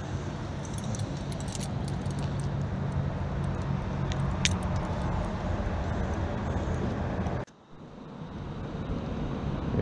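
A metal chain stringer clinks and jingles with a few sharp clicks as crappie are clipped onto it, over a steady low hum. The sound drops out suddenly for a moment near the end, then comes back.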